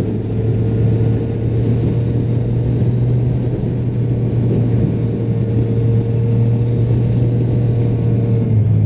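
Motorcycle engine running at a steady note under load while climbing, with wind noise rushing over the camera microphone. The engine note changes about eight and a half seconds in.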